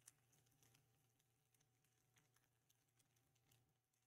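Near silence, with one faint click just after the start.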